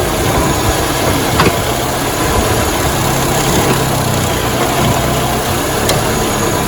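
Renault Megane 2 engine idling with irregular hard metallic knocks, a sharp one about a second and a half in and another near the end. The knocking has no regular rhythm and is the symptom the mechanic puts down to a cracked automatic-transmission flywheel (flexplate) on the DP0 gearbox.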